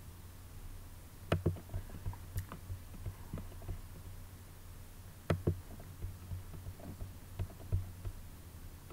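Computer mouse clicking: scattered sharp clicks and softer taps, with a quick double click about five seconds in, over a low steady hum.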